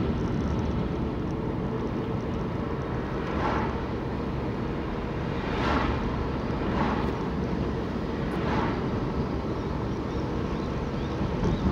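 Road and engine noise inside a moving car's cabin. Oncoming cars pass four times, each a brief swell of noise.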